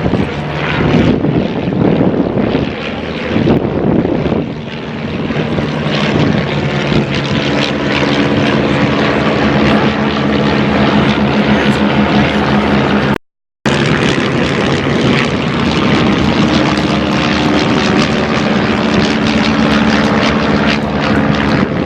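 Propeller aircraft engine droning steadily overhead, with an even, sustained pitch. The sound cuts out abruptly for a moment about thirteen seconds in, then carries on.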